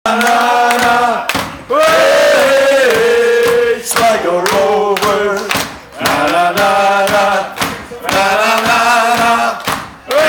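Several voices sing a 'nah nah nah nah' chant together over a live rock band with drums, in repeated held phrases of about two seconds each.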